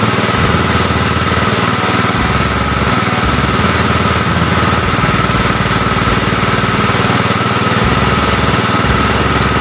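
Pressure washer with a small engine driving its plunger pump, running steadily at a constant speed with a fast, even pulse and a steady high tone, while its jet sprays water.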